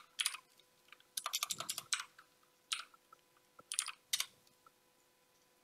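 Computer keyboard being typed in short bursts: a quick run of keystrokes about a second in, then a few single and paired key clicks, the last near four seconds.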